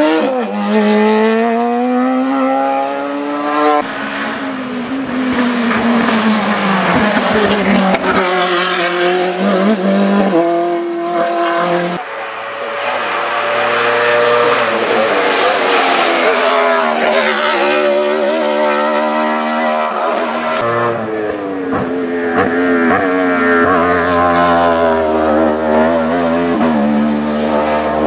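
Sport-prototype race car engines at high revs, rising and falling in pitch with quick gear shifts and hard braking as the cars climb a twisting hillclimb road. One car pulls away, and a second comes up and passes.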